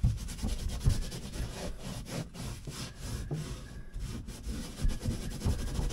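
Wire brush scrubbing paint off the boat's fibreglass floor in quick repeated back-and-forth strokes.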